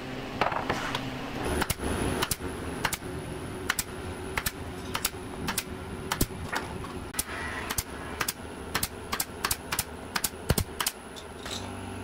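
Pneumatic brad nailer shooting nails into wooden trim strips over and over, each shot a quick sharp clack, unevenly spaced and coming faster near the end.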